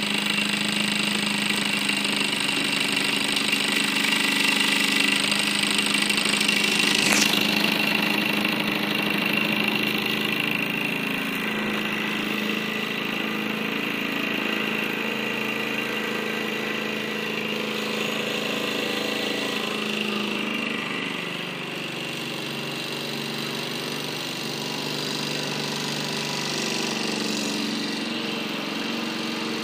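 Mamod toy steam engine running steadily under steam: the small oscillating brass cylinder chuffs rapidly as the flywheel spins, with a steady hiss of steam. One sharp click about seven seconds in.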